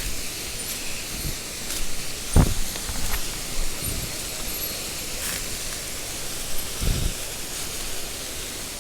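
Mountain stream water running over rocks: a steady rushing hiss, broken by two short low thuds a few seconds apart.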